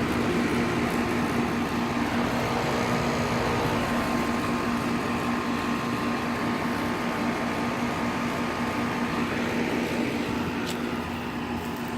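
5-ton Goodman GSX14 central air conditioner condenser running: a steady hum under an even rush of air noise, with a faint higher tone coming in for a few seconds midway. It is a unit the owner calls really quiet.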